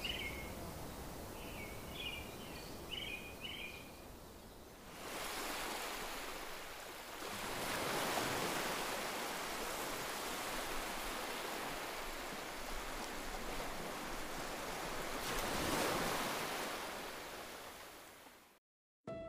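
Outdoor ambience: a steady rushing noise that swells about five seconds in, rises and falls, then fades and cuts off near the end. A few short high chirps come in the first few seconds.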